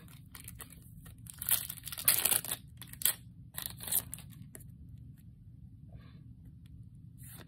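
Foil Yu-Gi-Oh booster-pack wrapper tearing and crinkling in a few short, sharp bursts over the first four seconds, the loudest about two seconds in, followed by quiet handling of cards.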